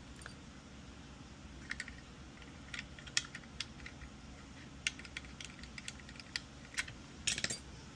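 Light, irregular clicks and taps of small hard parts being handled, multimeter probe tips set against the legs of an IGBT on a circuit board, over a faint low hum. The clicks come in a quick cluster near the end.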